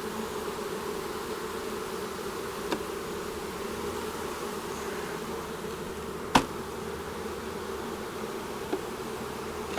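Honeybee colony buzzing steadily around an opened hive. A single sharp knock about six seconds in, with two faint taps around it.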